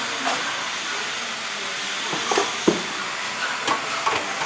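Small metallic clicks and taps from screws and a screwdriver being worked on a computer case, over a steady background hiss. The clicks fall a few times in the second half, the sharpest about two and a half seconds in.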